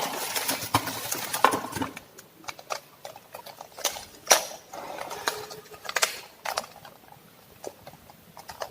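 Rustling and scattered clicks and taps of a drill's box contents being handled, with plastic packaging and drill bit cases being taken out. The handling is busiest in the first two seconds, then turns into sparse single clicks.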